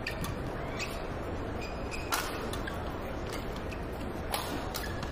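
Badminton rackets striking a shuttlecock in a fast rally: a string of sharp hits at irregular intervals, the loudest about two seconds in, with brief shoe squeaks on the court and a steady arena crowd murmur underneath.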